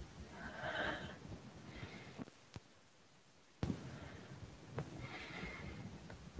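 Quiet, close breathing of a person: two slow breaths, one about half a second in and one about five seconds in, over a low rumble with a few faint clicks.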